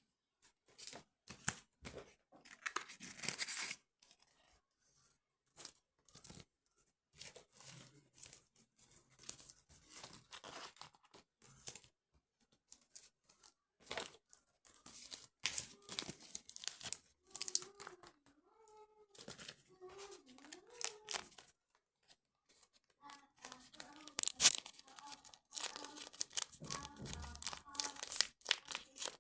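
Irregular crackling, rustling handling noise in a small room, with a faint voice heard in the middle and again near the end.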